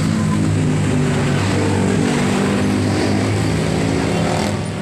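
An engine running steadily close by, its pitch shifting a little every second or so.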